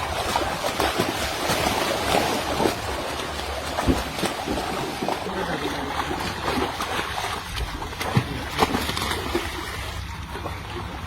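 Water splashing and trickling in irregular bursts, over a steady low rumble.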